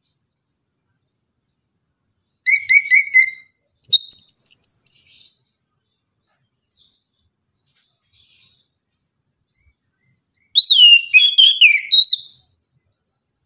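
Chestnut-capped thrush singing: a quick run of about five notes, then a run of high notes falling slightly in pitch, and after a pause of several seconds a loud phrase of swooping whistles.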